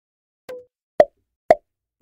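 Quiz-video pop sound effects: a faint click with a short tone about half a second in, then short sharp pops every half second as answer options pop onto the screen.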